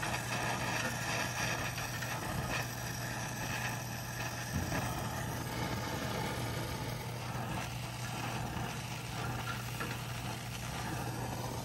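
Brazing torch flame hissing steadily as it heats a copper refrigerant line joint on a mini-split outdoor coil to debraze it.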